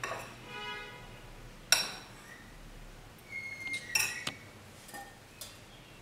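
Metal spoon and whisk clinking against glass mixing bowls while pancake batter is mixed: a sharp clink about two seconds in, then a quick cluster of clinks with a brief glassy ring a little past the middle, and a few lighter taps near the end.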